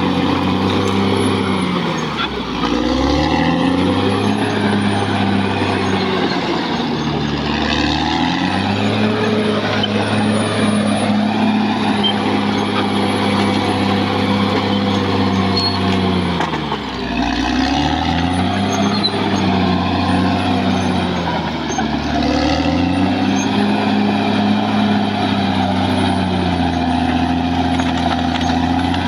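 Caterpillar D6R XL bulldozer's diesel engine running hard, its pitch sagging and recovering four times as it lugs under load, with a thin high whine over it.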